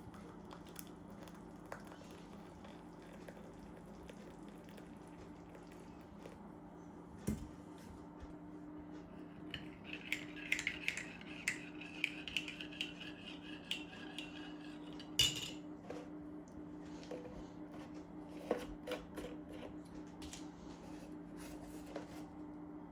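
Kitchen clatter of a coffee being made: a spoon and crockery clinking, with a teaspoon stirring rapidly in a cup for several seconds around the middle, ending in a sharp knock. A steady low hum runs underneath.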